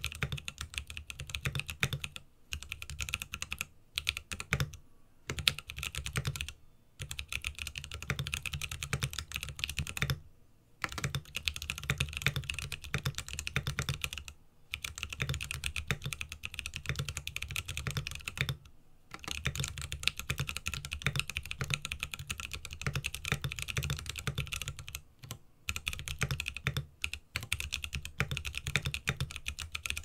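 Fast touch-typing on a Linworks Whale custom mechanical keyboard with an acetal (POM) case, Koala switches and POM Jelly keycaps: dense runs of keystrokes, broken by short pauses every few seconds.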